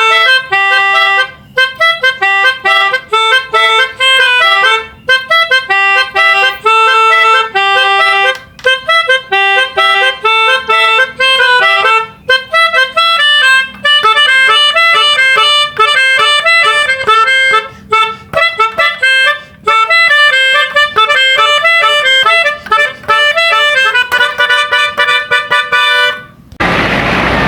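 A long, loud tune of reedy, horn-like notes, often several pitches at once, played in quick phrases with brief breaks between them.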